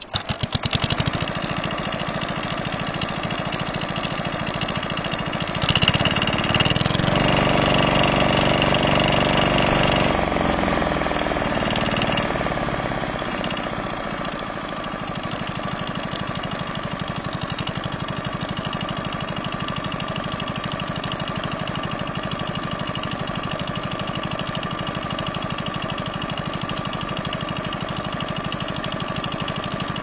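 Single-cylinder diesel engine of a two-wheel walking tractor catching and running, with a fast, even firing beat. It runs faster and louder for several seconds, then eases back about halfway through to a steady idle.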